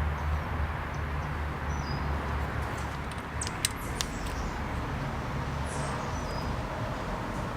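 A few sharp clicks of hand tools being worked on a motorcycle's engine-guard bolts, the loudest about three and a half seconds in. Under them are a steady low hum and a few short, high chirps.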